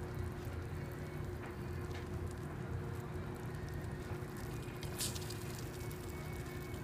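A metal spoon stirring melted butter into cake mix in a slow cooker's crock, with a few faint clicks of the spoon against the crock, over a steady low hum.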